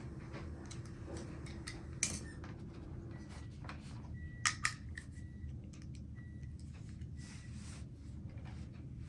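Light clicks and taps of small screws, tools and suspension-link parts being handled while fitting the rear links on an RC crawler. A sharper click comes about 2 s in and two more about 4.5 s in, with a few faint short squeaks, over a low steady hum.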